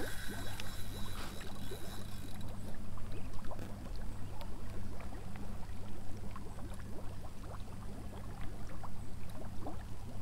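Lake water lapping, with many small splashes around a landing net held in the water, over a steady low hum.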